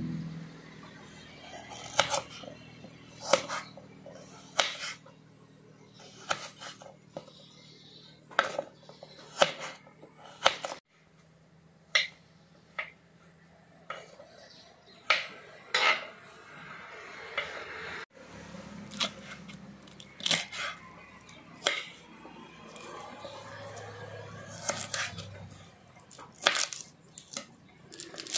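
Kitchen knife cutting crisp green vegetable stalks and leaves on a wooden cutting board: separate sharp knocks of the blade on the board, roughly one every second or two.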